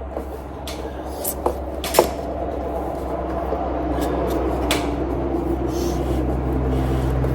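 Electrical cable being handled and fed through drilled holes in wooden beams: scattered clicks and knocks, the loudest about two seconds in, with a low steady hum growing louder in the second half.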